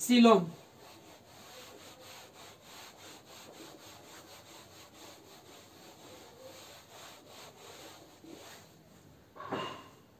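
Whiteboard duster rubbing back and forth over a whiteboard in repeated strokes, a soft steady scrubbing as the board is wiped clean. A brief voice cuts in near the end.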